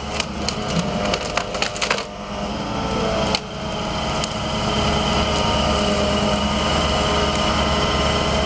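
Wood cracking and splintering, a quick run of snaps and cracks with one sharp crack a little later. Then a machine engine runs steadily, growing slightly louder.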